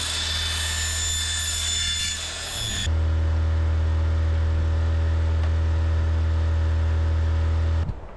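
Power saw with a steel blade cutting through an aluminium door threshold: a harsh, high whining cut that stops abruptly about three seconds in. It is followed by a steady low hum that cuts off just before the end.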